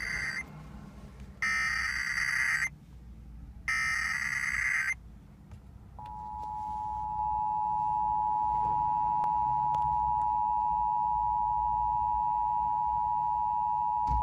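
Emergency Alert System SAME header: three short bursts of screeching digital data tones, about a second each with short gaps between, the first already under way. Then the two-tone EAS attention signal starts about six seconds in and holds steady. Together they announce a National Periodic Test alert.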